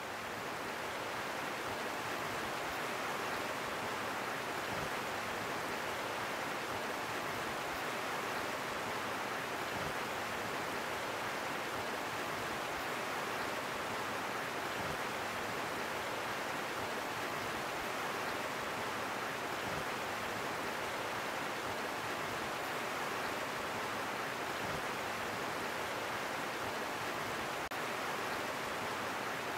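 Shallow river water rushing steadily over small rock cascades, fading up at the start and then holding an even level.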